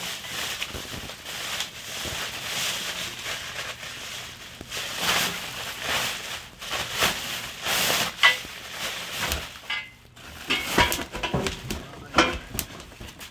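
Crinkling and rustling of packaging, with knocks and a few short ringing clinks of metal parts being handled.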